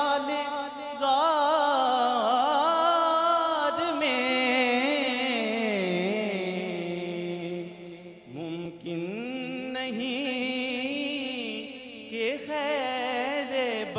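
A man reciting a naat, a devotional Urdu poem, in a sung chant, holding long ornamented notes with a wavering vibrato. There is a short break for breath about eight seconds in.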